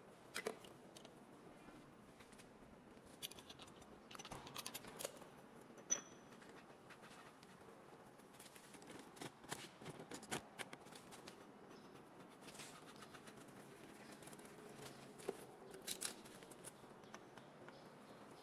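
Faint, irregular light clicks, taps and scrapes over quiet room tone, with no machine running; the sharpest click comes about a third of the way in.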